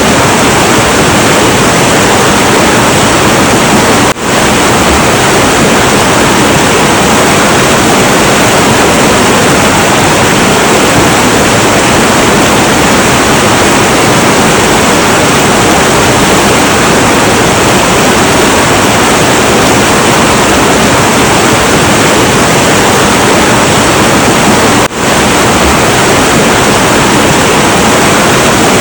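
Heavy, turbulent river water rushing in a steady, loud roar, with two brief dips in level, about four seconds in and again near the end.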